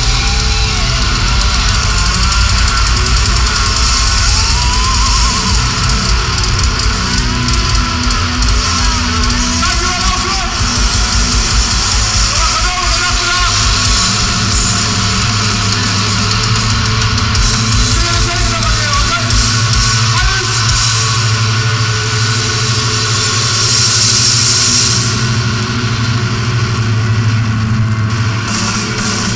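A death metal band playing live and loud: distorted electric guitars, bass and drum kit, with rapid low drum strokes through much of it.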